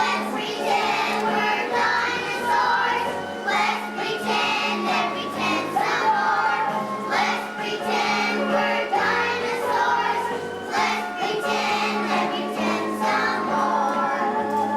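A group of children singing together as a choir, with musical accompaniment.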